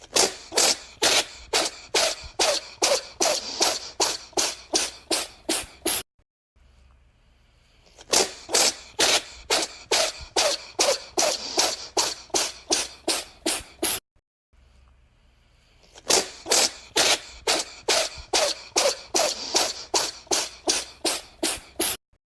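A cat sneezing in a rapid fit of about three sharp sneezes a second. The same run of some sixteen sneezes is heard three times over, with a brief silent gap between runs.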